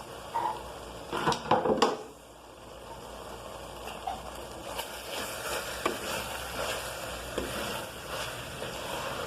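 Ground-beef filling sizzling in a pan while freshly added grated carrot is stirred in. A few knocks of the utensil against the pan come in the first two seconds, then a steady crackling sizzle.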